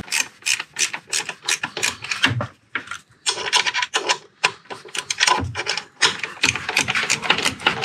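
Hand ratchet clicking in quick runs of strokes with short pauses between them, mixed with metal scraping.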